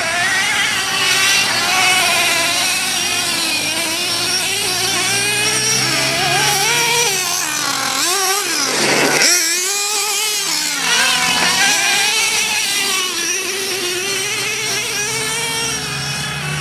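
1/8-scale Losi nitro RC buggy's Go-Tech .21 two-stroke glow engine, a high-pitched whine revving up and down without a break as the buggy is driven. About eight seconds in the revs drop steeply and then climb straight back up.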